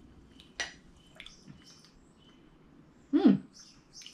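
Coffee being tasted off spoons: a short sharp click, a few faint ticks, then a brief voiced "mm" of approval just after three seconds in.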